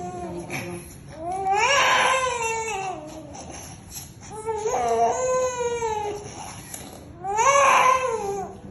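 Infant crying: three long wails, each rising then falling in pitch, with short breaths between.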